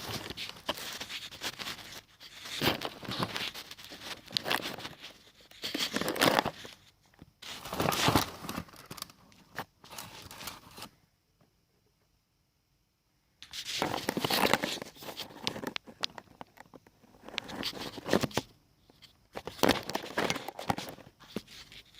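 Handling noise from the camera being moved and set up: irregular bursts of rustling, scraping and crunching, with no saw motor running. The sound cuts to dead silence about halfway through for a couple of seconds, then the rustling resumes.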